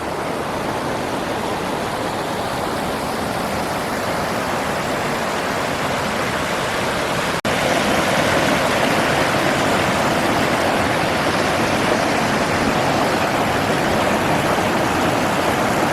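Mountain stream rushing over small cascades: a steady hiss of running water that breaks off for an instant about halfway through and comes back a little louder.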